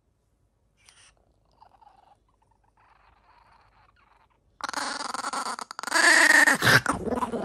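Chihuahua growling, a high wavering growl that starts about four and a half seconds in after near silence. It is a small dog guarding its food from a reaching finger.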